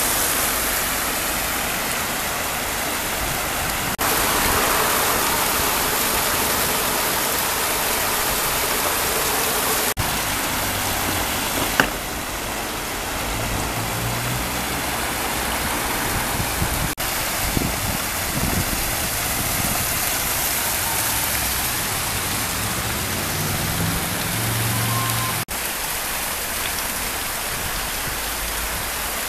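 Water running and splashing down a stepped stone cascade fountain: a steady rushing noise, broken by a few abrupt cuts.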